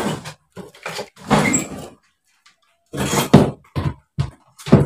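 Handling noise from working on an electric fan: a series of about seven short knocks and scrapes, loud and irregular, with silence between them.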